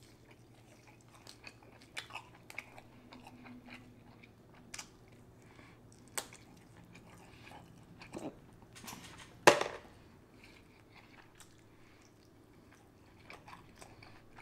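Close-miked eating of a sauced seafood boil: wet chewing and mouth smacks with scattered small clicks, and one sharp, loud click about nine and a half seconds in.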